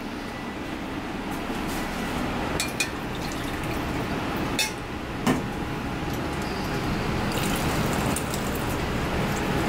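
Water splashing in a stainless steel bowl at a kitchen sink, with a few sharp metal clinks. From about seven seconds in, a tap stream pours into the bowl.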